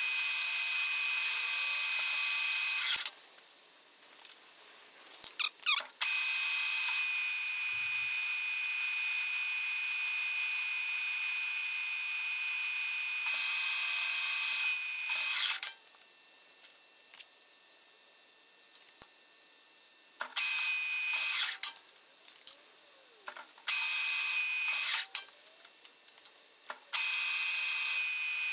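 Metal lathe turning a metal bar: a steady, high-pitched cutting whine with a hiss, heard in several stretches that start and stop abruptly, with near-quiet gaps between them.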